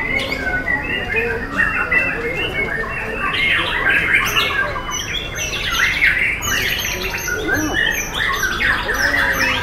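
Caged white-rumped shamas (murai batu) singing in competition, several at once: a dense, unbroken run of quick, varied whistled phrases and chatters that overlap one another.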